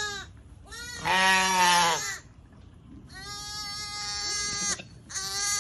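Shetland sheep bleating: four drawn-out, pitched calls about a second apart, the longest lasting nearly two seconds midway through.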